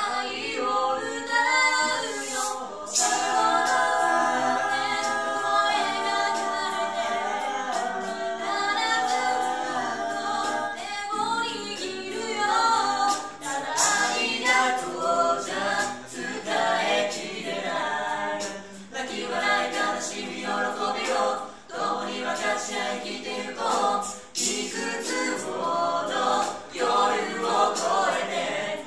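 Small mixed a cappella group, men's and women's voices, singing a Japanese pop song in harmony, coming in all together at the very start.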